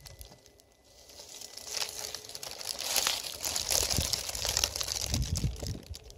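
Rustling and crackling of plants and dry leaf litter being brushed and stepped through among Solomon's seal. Nearly quiet for the first second, then irregular crackles, with some low rumbling thumps near the end.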